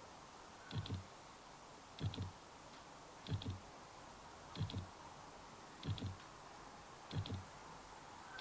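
A short double click with a low thud in it, repeating at a steady beat about every 1.3 seconds, over faint room tone.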